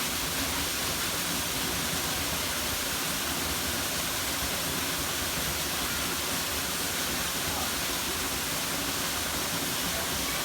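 Waterfall on a mountain stream: a steady, even rush of falling water.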